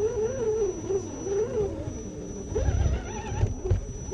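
Electric motor and gear drive of an RC rock crawler whining, the pitch rising and falling as the throttle is worked through mud. Low rumbling thumps join in the second half.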